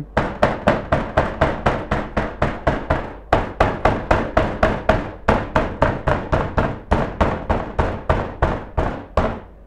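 Raw schnitzel cutlets being pounded flat on a wooden cutting board: a steady run of dull knocks, about four a second, with a short break about three seconds in.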